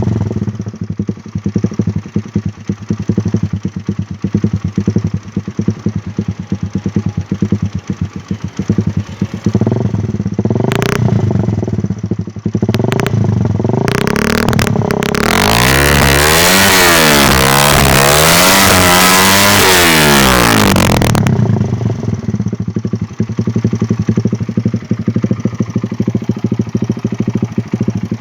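Suzuki Satria FU's four-stroke single-cylinder engine running through a DOS racing exhaust: idling with a pulsing beat, blipped a few times about ten to fifteen seconds in, then held at high revs for about six seconds with the pitch rising and falling, before dropping back to idle. The owner says the engine itself is not in good shape.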